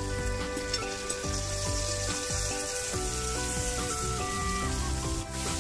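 Barramundi fillets sizzling as they pan-fry in hot, foaming butter, with background music playing over the sizzle.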